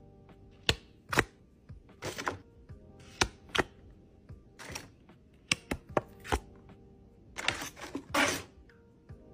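Unboxing a cardboard shipping box: about a dozen scattered sharp taps and clicks of hands and packaging, with short rustles of crinkling tissue paper, the loudest rustle near the end.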